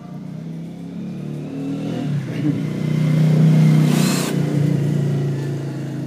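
12 V Makita cordless drill running free under the trigger: its motor hum builds up over a couple of seconds to a peak about three and a half seconds in, then eases off. A brief high rasp sounds about four seconds in.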